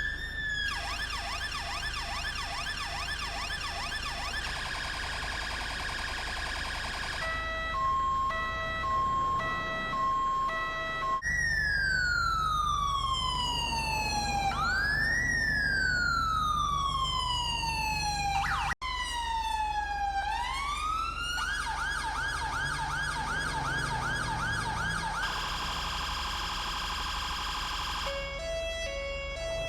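UK police car electronic siren cycling through its patterns: a fast warbling yelp, a two-tone alternation of a high and a low note, then a long wail that slowly falls and quickly rises again, and the fast yelp once more. It cuts out for an instant about two-thirds of the way through, and ends on a lower two-note alternation.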